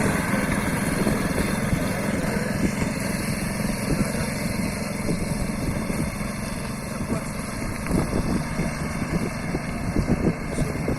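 Small engine of a homemade two-wheel-drive motorcycle running at low revs, steady, with uneven short knocks in the lower range that become more frequent in the second half.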